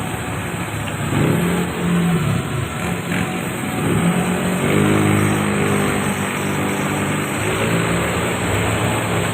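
A vehicle engine running, its pitch rising and falling as it is revved.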